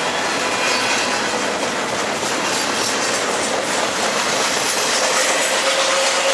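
Train cars rolling past at close range as the train accelerates, their steel wheels on the rail making a loud, steady rushing noise with a wheel hum. Near the end the hum's tone comes up more clearly and climbs slightly in pitch as the speed rises.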